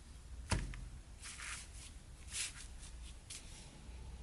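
Small objects being handled on a workbench: a sharp click about half a second in, then a few soft rustles and light ticks.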